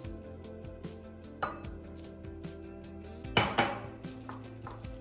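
A whisk knocking and clinking against a mixing bowl while batter is mixed: a few scattered knocks, the loudest two close together about three and a half seconds in.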